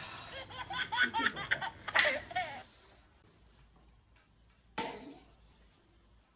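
High-pitched, pulsing laughter for about two and a half seconds, then a single sharp smack nearly five seconds in.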